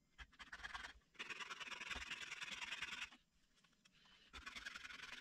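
Scratchy scraping and rubbing of hands working on a hard black plastic lock housing, in two stretches of about two seconds each.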